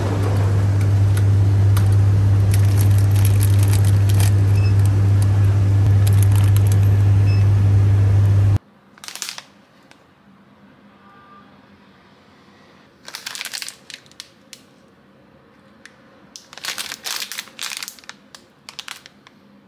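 Steady low hum and din of a convenience store beside its chilled display fridges, cutting off suddenly about a third of the way in. Then, in a quiet room, plastic snack wrappers crinkle in several short spells as they are handled.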